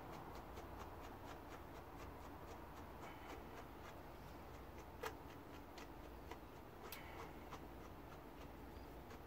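A slicker brush raking through an Angora rabbit's wool in quick, short strokes: faint ticks at about three or four a second, with a sharper click about five seconds in and another about seven seconds in.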